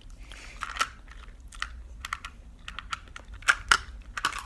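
Chewing of hard, sugar-glazed cherry gummy candies, heard as a string of short crisp crunches and clicks. The loudest pair comes about three and a half seconds in.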